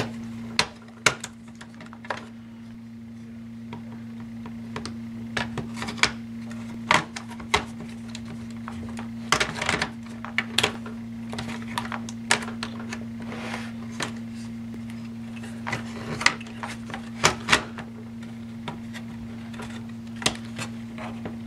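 Irregular clicks, taps and knocks of hands handling and prying at a laptop's case parts during disassembly, several in quick clusters, over a steady low hum.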